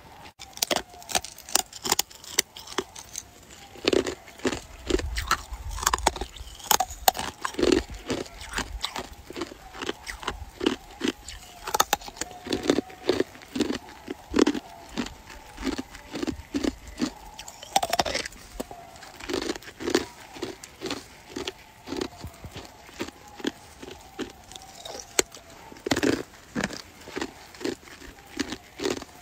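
An icicle being chewed: hard, clear ice crunching and cracking between the teeth in a long run of sharp, crisp crunches.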